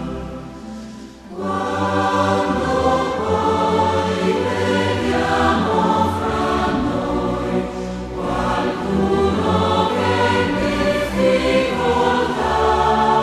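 Choral music: a choir singing slow, sustained chords. It dips briefly and comes back in fuller about a second in.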